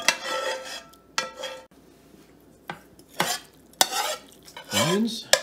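Metal spoon scraping and clinking against a nonstick skillet and the rim of a stainless steel stockpot as sautéed celery and onions are scraped out into dry cornbread crumbs. Several sharp clinks with softer scraping between them, and a short rising squeak near the end.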